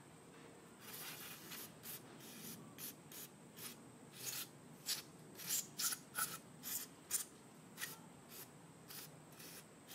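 Cleaning work on a small-engine carburetor: a run of short, scratchy, hissing strokes, roughly one or two a second and unevenly spaced, starting about a second in.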